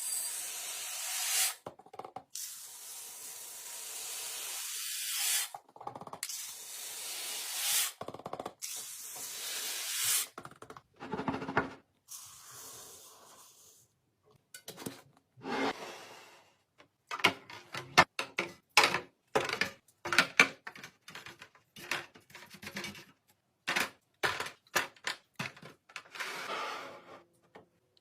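Several long hisses, each one to three seconds, in the first ten seconds. Then a quick run of clicks and knocks, like food containers and lids being handled and set down.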